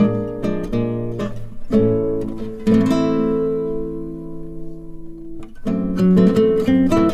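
Background music on acoustic guitar: picked notes, then a chord strummed about three seconds in that rings and fades out, before the picking picks up again near the end.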